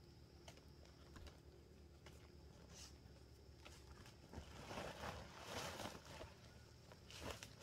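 Faint rustling and crinkling of a woven plastic sack being handled, opened and lifted, with scattered soft clicks. The rustling grows denser a little past halfway through, with another brief rustle near the end.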